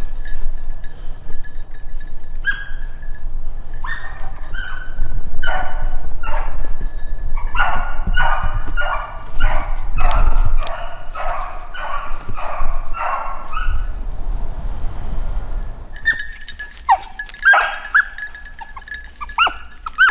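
Beagle baying while running a freshly jumped rabbit by scent: a string of repeated calls, about two a second through the middle, then a short lull and more broken, higher yelps near the end.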